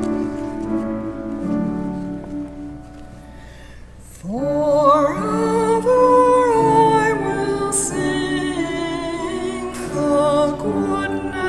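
Church music: sustained instrumental chords, then a solo cantor's voice enters about four seconds in, sliding up into a sung line over the accompaniment, as the responsorial psalm begins.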